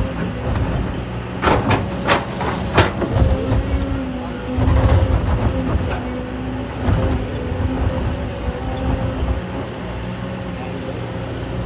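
Hydraulic excavator's diesel engine running steadily while it digs, with a few sharp metal clanks in the first three seconds and a louder low rumble about five seconds in.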